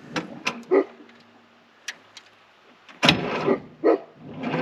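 The starter of a 1969 backhoe's diesel engine trying to crank on a battery too weak to turn it over: a few clicks, then short noisy bursts near the end that die away without the engine catching.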